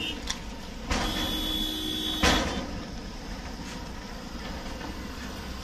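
Slow road traffic of cars rolling past. A steady horn-like tone sounds for about a second and a half, starting about a second in, and a short loud rush of noise comes just after two seconds.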